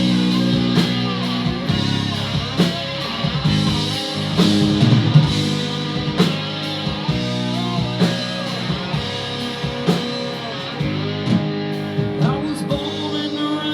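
Rock band playing an instrumental break: guitar lines with bending notes over bass and steady drum hits.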